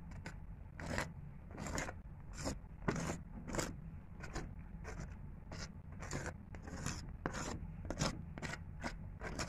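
Knife blade scraping butter across the crisp, browned crust of a round homemade bread in its pan, in repeated short strokes about two a second.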